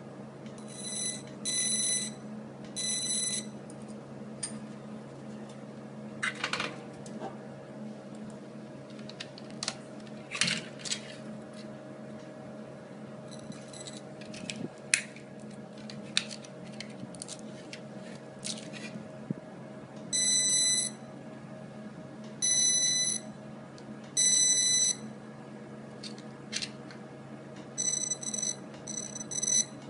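Fiber laser marker firing in short bursts of a high-pitched buzzing tone, each under a second, three near the start and several more in the last ten seconds, as it marks metal bangles. A steady machine hum runs underneath, with light clicks and clinks of the jewelry being handled.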